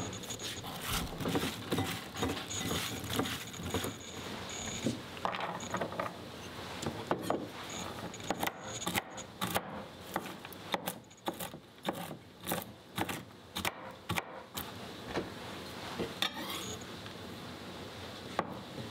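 Kitchen knife chopping walnuts on a wooden cutting board: quick, uneven knocks of the blade on the board, densest in the middle, with lighter rustling and clattering of nut pieces before and after.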